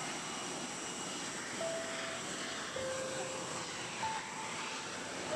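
Steady rush of airliner cabin noise, the jet engines and airflow heard from inside the cabin as the plane descends to land.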